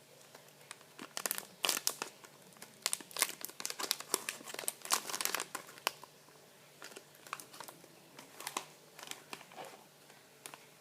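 Plastic packaging of squishy toys crinkling and crackling as it is handled: many quick irregular crackles in the first half, thinning out after about six seconds.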